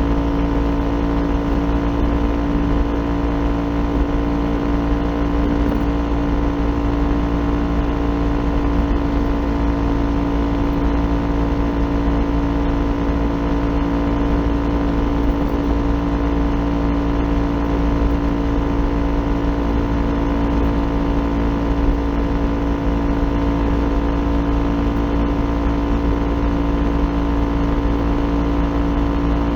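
Kawasaki Ninja 400 parallel-twin engine running through an Akrapovic aftermarket exhaust, held at one steady engine speed, with a constant unchanging drone and no revving.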